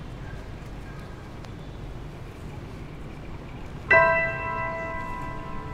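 A single struck bell tone about four seconds in, loud and sudden, ringing on with several steady overtones and slowly fading, over a low steady background rumble.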